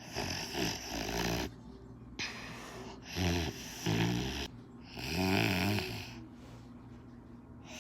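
A person snoring: a series of rough snores, each up to about a second and a half long, with short gaps between them.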